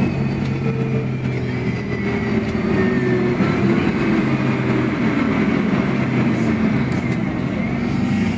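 Iveco Urbanway 18 articulated bus with a compressed-natural-gas engine, heard from inside while under way: a steady engine and drivetrain hum with road noise. Its pitch slides down over the first few seconds and climbs again near the end.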